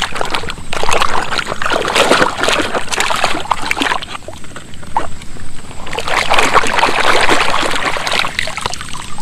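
Water splashing and sloshing as a plastic toy dump truck is swished and scrubbed by hand in shallow muddy water, easing off briefly around five seconds in.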